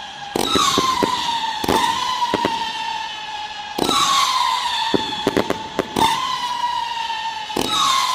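Pyro Crybaby firework wailing: a whistling tone that jumps up and then slowly falls in pitch, starting over three times about every three and a half seconds, with sharp crackling pops over it.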